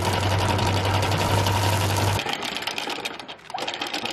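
Newly installed vertical anchor windlass running with a steady motor hum and a rattle of chain links, hauling anchor chain up over the bow roller. The motor stops a little over two seconds in, leaving lighter clinking of chain.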